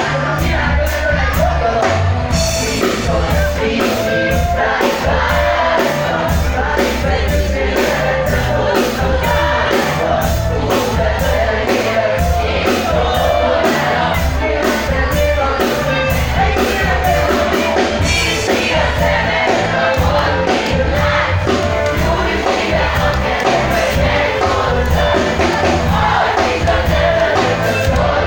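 Live band playing a song with a lead singer: drums keeping a steady beat, strong bass and guitar under the vocal line.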